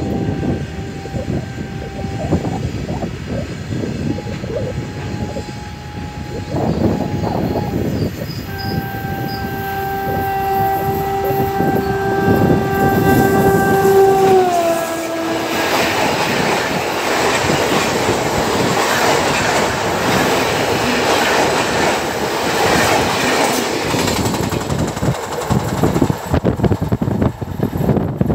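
Gatimaan Express electric train passing at about 120 km/h. The locomotive's horn sounds in three long blasts, and the last one drops in pitch as the locomotive goes by. Then the coaches rush past with their wheels clattering, and the noise fades away.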